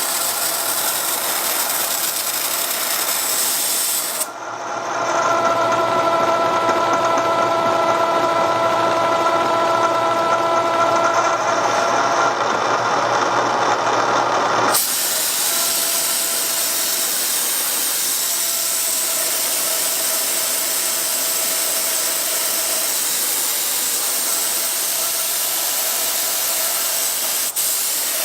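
Milling machine running at about 2,400 RPM with a three-flute end mill slowly facing down the spark-plug boss of a Sportster cylinder head. The noise changes abruptly about four seconds in, with a steady ringing tone from the cut, and turns back to a harsher hiss about fifteen seconds in.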